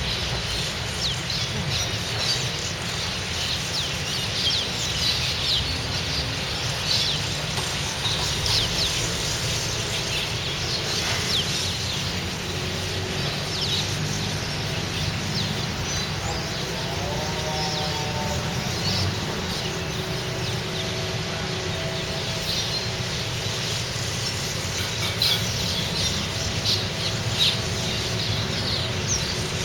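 A large flock of small birds gathered on a wire, chirping constantly with many short calls overlapping, over a low rumble.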